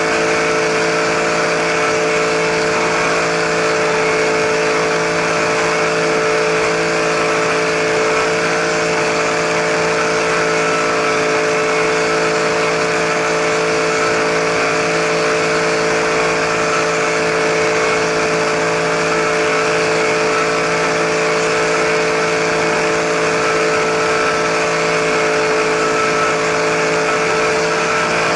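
Radio-controlled helicopter in flight, its motor and spinning rotor blades making a steady whine at one even pitch, heard from a camera mounted on the helicopter itself.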